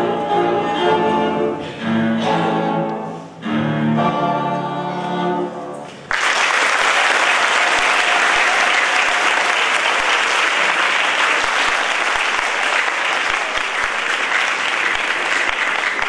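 Cello playing the closing bowed notes of a piece. About six seconds in the music ends and an audience breaks into steady applause.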